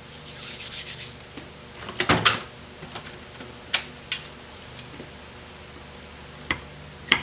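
Rusted kickdown shaft being worked loose from a Chrysler 727 transmission valve body: scraping and rubbing, a short clatter about two seconds in, then a few sharp clicks.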